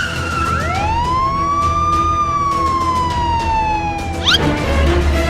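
A siren: one long wail that rises over about a second and a half, then slowly falls, broken near the end by a quick upward sweep, over a steady low hum.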